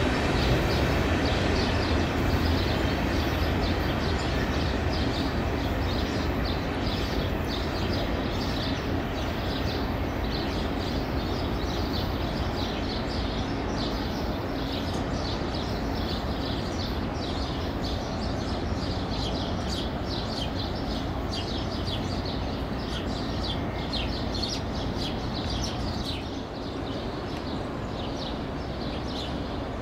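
CSX freight train of tank cars rolling away, its rumble slowly fading, with birds chirping throughout.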